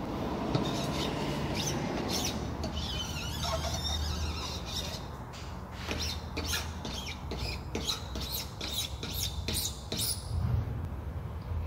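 Plastic spatula spreading CA glue along the edge of a screen frame: squeaky scraping strokes, coming short and quick in the second half.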